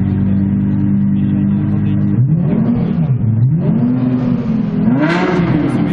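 Lexus LFA's 4.8-litre V10 idling steadily, then revved three times in quick succession about two seconds in, each rev rising and dropping back fast, the last one the highest.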